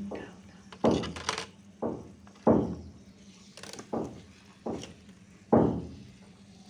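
A series of about seven separate knocks and thunks, irregularly spaced, with the loudest a little after two seconds in and again past five seconds.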